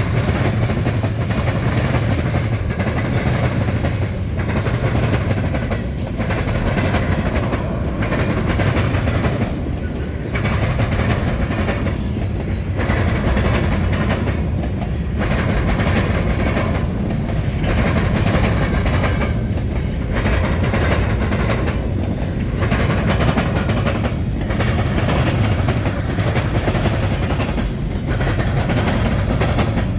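Freight train cars rolling past close by, wheels clattering on the rails in a steady rumble that dips briefly about every two seconds as each car goes by.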